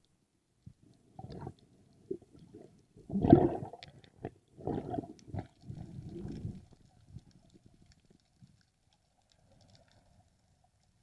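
Underwater sound in rough, surging water: muffled knocks and rushing water in irregular bursts, the loudest about three seconds in, fading to a few faint clicks in the second half.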